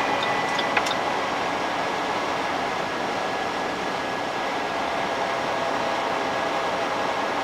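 Steady rushing road and tyre noise inside a moving car at highway speed, with a faint constant high whine and a small click about a second in.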